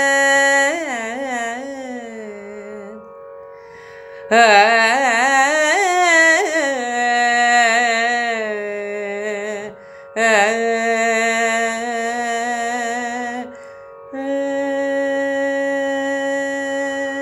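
Woman's voice singing the closing phrases of a Carnatic kriti in raga Sahana: four long phrases on held vowels with short breaks between, the pitch shaken by gamakas in the first two and held steady on the last note.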